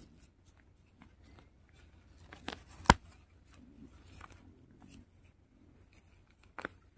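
Faint crackling and rustling of leaves and dry soil as a hand grips weeds at the base and tugs them. There is one sharp snap-like click about three seconds in.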